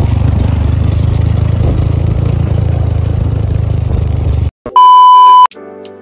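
Motorcycle engine running with wind rushing over the microphone during a ride; it cuts off suddenly about four and a half seconds in. A loud steady beep lasts about a second, and music begins right at the end.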